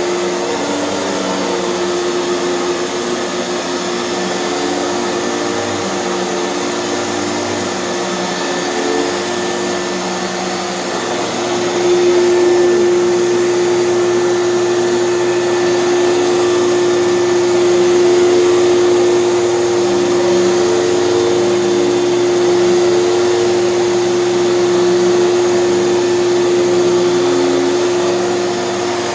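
Hoover canister vacuum running steadily with its power nozzle working the carpet, a steady motor whine over rushing air, a little louder from about twelve seconds in.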